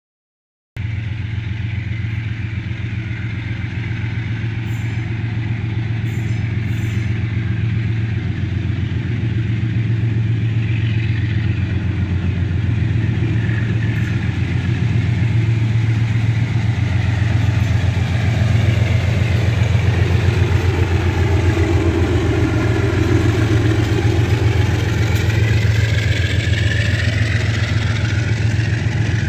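Diesel engine of a GE U20C locomotive running as it pulls a freight train toward and past, a steady low drone that grows louder as it nears. In the last several seconds a high, wavering squeal from the wheels of the empty hopper wagons joins in.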